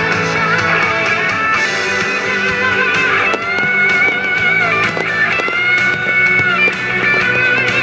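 Music with guitar: a sustained, gliding melody line over steady low notes.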